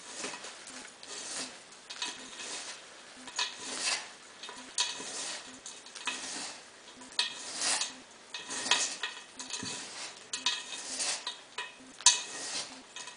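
Hands mixing potting soil with sand and crushed charcoal in a wide pot: a run of irregular gritty rustling and scraping strokes.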